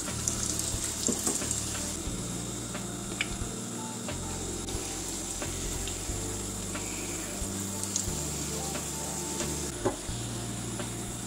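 A large flat piece of kefir doughnut dough frying in hot oil in a frying pan, sizzling steadily. A few light clicks of metal tongs against the pan as the dough is turned over.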